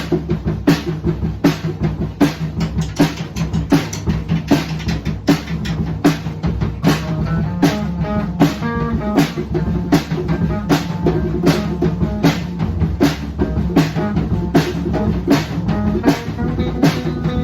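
A small band playing an instrumental passage: a drum kit keeps a steady beat over a bass line and guitar, and from about seven seconds in a melody of short, stepping notes comes in over the groove.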